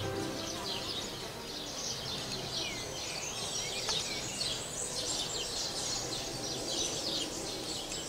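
Small birds chirping rapidly and continuously, many short overlapping chirps, with background music ending right at the start.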